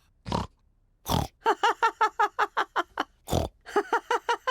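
Cartoon pig characters laughing and snorting: three loud snorts, with quick, repeated laughter between them.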